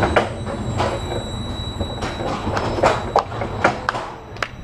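Rocky Mountain Construction roller coaster train rattling and clacking over its steel track, the noise dying down toward the end as the train slows.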